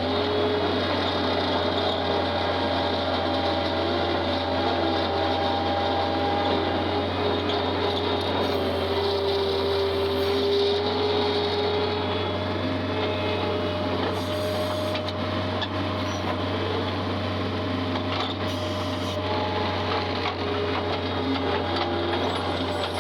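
Tractor engine running steadily, a low, even hum with faint wavering whines above it.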